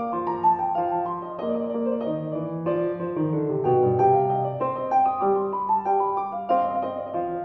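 Background music: piano playing a gentle melody over chords, one note after another.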